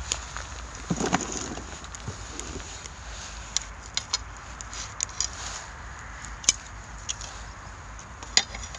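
Pine cones burning in a shichirin clay brazier, crackling with sharp irregular pops and snaps. About a second in comes a short knock and rustle as the fire is tended.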